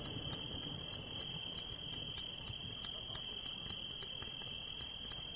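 Crickets trilling in one continuous high-pitched band, with faint scattered pops from a fireworks display.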